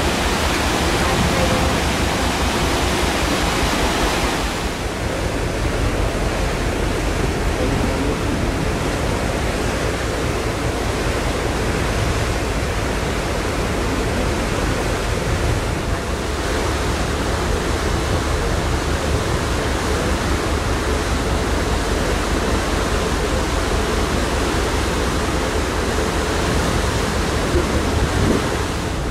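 Steady rush of wind and sea water heard from a ferry underway, with a low rumble underneath. The higher hiss eases a little about four seconds in.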